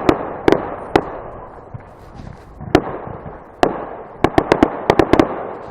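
Fireworks display: shells bursting with sharp bangs, a few spaced apart, then a quick run of about eight in a row near the end, over a continuous background rumble.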